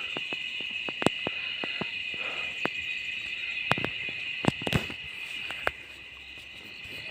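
Crickets chirping steadily, with a string of irregular sharp clicks and snaps over them, the strongest cluster about four and a half seconds in.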